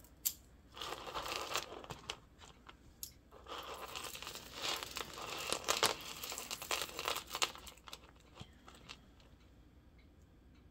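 Hands handling and untangling costume jewelry: beads and chains rustle and click against each other for about seven seconds, dying down to faint scattered ticks near the end.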